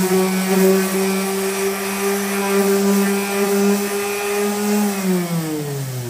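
Electric random orbital sander running at speed while sanding a wooden board: a steady motor whine with a rough sanding rasp under it. Its pitch slides down over the last second or so.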